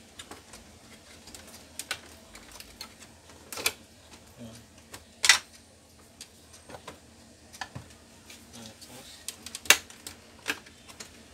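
Irregular plastic clicks and knocks from the casing of an Epson L1300 printer being taken apart by hand, with a few louder knocks spread through.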